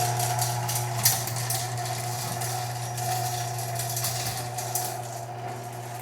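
Chain-drive garage door opener running as the door travels down: a steady motor hum and whine with light metallic clicking and rattling of the chain and rollers. The chain has just been tightened to cure its slapping. The sound gets quieter near the end.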